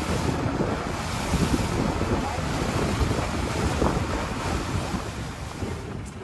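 Wind buffeting the microphone over the rush of water along the hull of a longtail boat under way.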